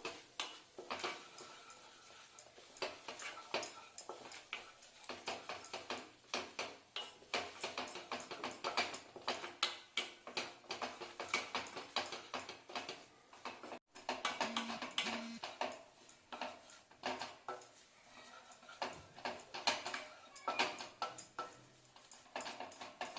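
A spatula scraping and stirring besan (gram flour) roasting in ghee in a kadhai, in quick, irregular strokes.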